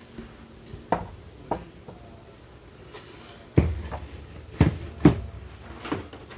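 Handling knocks from a Sizzix die-cutting machine set-up: a cutting die and hard cutting pads being moved and set down on the machine's platform, giving about six sharp knocks and clicks. The heaviest, a dull thud, comes about three and a half seconds in.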